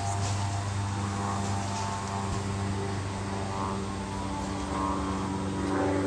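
A steady mechanical drone, a low hum with several pitched tones above it like a motor or engine running; the higher tones shift and grow a little louder near the end.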